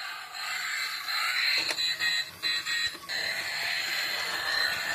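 Battery-operated toy tow truck running: a steady, tinny mechanical whir and electronic sound from the toy, broken by a few short dips in the first three seconds.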